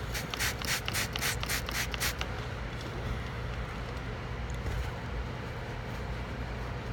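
Water from a squeeze or spray bottle hitting the freshly soldered, still-hot cable lug, hissing in about eight quick bursts over the first two seconds, then stopping. A steady low hum runs underneath.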